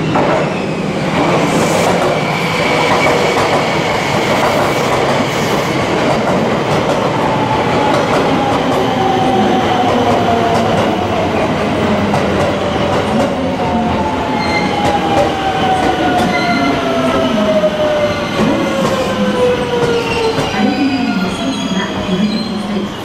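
Haruka limited express electric train running past, with a loud rumble of wheels on rail and a motor whine whose pitch falls slowly as the train slows into the station. Light wheel squeal runs through it.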